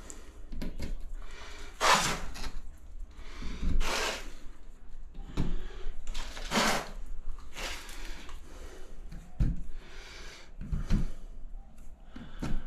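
Handling noises of wall tiling: irregular scuffs, rustles and light knocks, about one every second or two, as hands work along freshly laid subway tiles and reach into a container of tile spacers.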